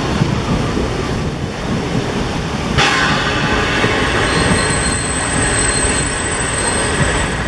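Narrow-gauge railway passenger carriages rolling slowly past close by, wheels rumbling over the rails. A sudden sharp noise comes about three seconds in, and a thin, high wheel squeal sounds through the second half.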